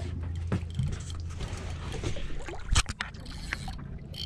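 Boat engine running steadily under wind and water noise, with scattered knocks and one sharp thud near three seconds in.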